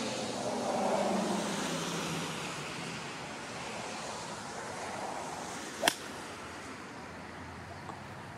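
Golf club striking a ball off the tee: one sharp click about six seconds in. Steady road traffic noise runs underneath, swelling briefly about a second in.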